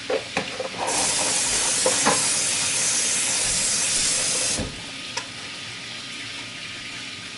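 Tofu frying in hot oil with a steady sizzle. A louder hiss starts about a second in and cuts off suddenly about four and a half seconds in, with a few light clicks and knocks of kitchen handling.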